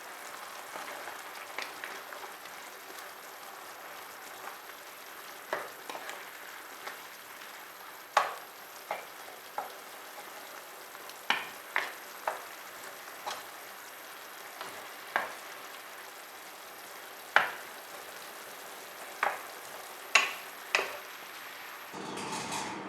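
Chicken frying in a pan with a steady sizzle, while a utensil stirs it and knocks sharply against the pan at irregular moments.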